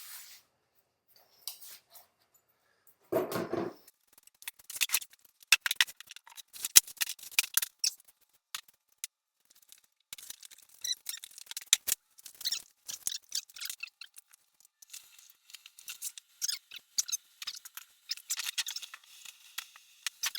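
Crackling, clicking handling noises of materials being worked by hand, with a short, duller rustle about three seconds in. Sharp clicks come in quick runs, and the crackling grows denser and more continuous from about halfway through.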